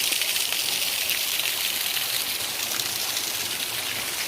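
Steady rush of flowing water: an even, hissing wash that does not change.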